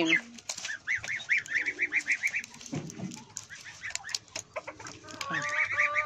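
Poultry calling: a quick run of short, evenly repeated calls, about eight a second, lasting under two seconds, and a second run starting near the end. A few light clicks fall between the runs.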